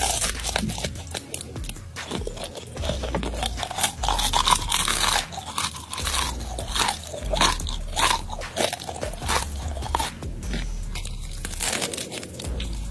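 Close-up chewing and biting into deep-fried tarantula: a quick, irregular run of crisp crunches that goes on without a break.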